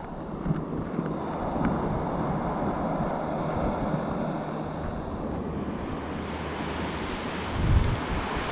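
Ocean surf washing on the beach, a steady hiss that swells about two-thirds of the way through, with wind buffeting the microphone in low gusts, heaviest near the end.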